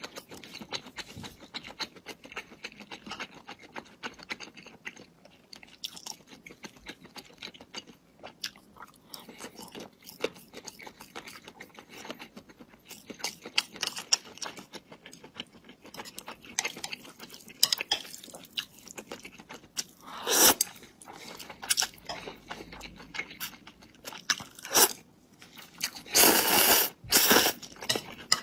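Close-miked chewing and crunching of food, a dense run of small crisp clicks. There are a few louder, longer crunchy bites about two-thirds of the way in and again near the end.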